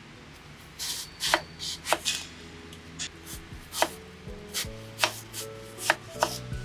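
Knife chopping food on a cutting board: sharp strokes starting about a second in, about two a second at an uneven pace, over soft background music.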